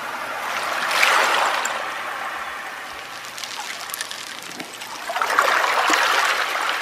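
Sound effect of running water trickling under a logo animation. It swells about a second in and again near the end.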